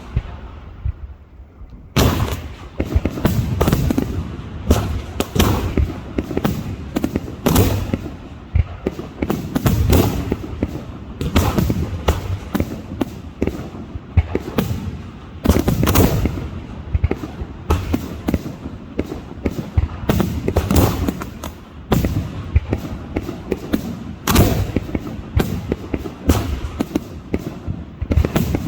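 Aerial fireworks shells bursting in quick succession, dense overlapping booms and bangs several a second, starting about two seconds in after a brief lull.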